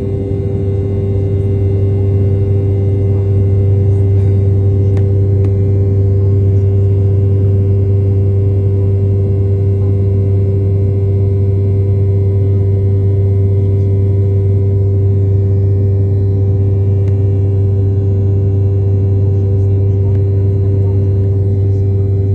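Airliner's jet engines heard from inside the cabin: a loud, steady drone with a constant deep hum and a higher steady tone, growing a little louder over the first couple of seconds and then holding.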